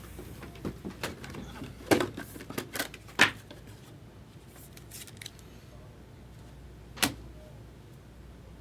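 Trading cards and card packs being handled: a run of short clicks and rustles in the first few seconds, with one more sharp click about seven seconds in.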